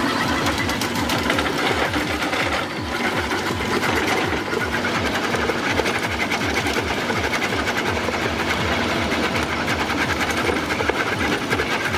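MB R900 drum cutter on an excavator grinding into a tree stump: a loud, steady, fast mechanical chatter of the rotating cutter drum chewing wood, with a brief drop about three seconds in.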